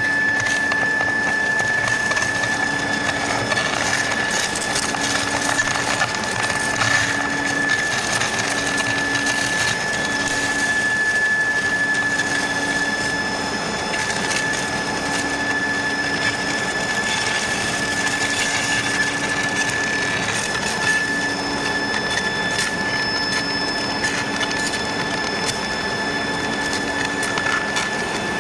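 IGBT medium-frequency induction melting furnace running at power: a steady high-pitched whine with continuous crackling from the sparking melt. A lower hum cuts in and out every second or two.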